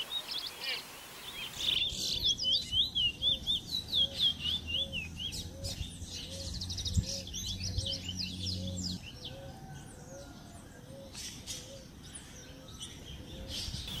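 Caged Trinidad bullfinches (large-billed seed finches) singing in competition: runs of quick, repeated, downward-slurred whistled notes, busiest in the first half. A faint soft note repeats about twice a second beneath them.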